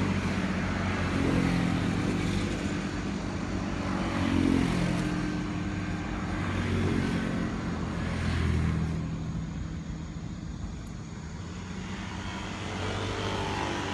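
Road traffic: a steady engine hum from passing vehicles that swells louder several times, then eases off a little in the last few seconds.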